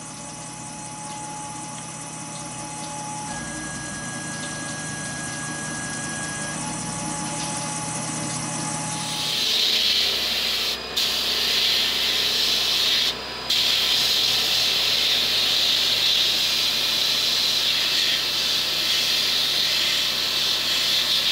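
CNC mill cutting a steel Glock 35 slide under coolant, with a steady spindle whine and a few held tones. About nine seconds in it gives way to the loud, even hiss of an abrasive blasting gun on the slide inside a blast cabinet, which stops for a moment twice.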